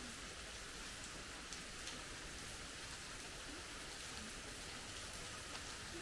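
Steady rain falling, with a few separate drops clicking on a surface.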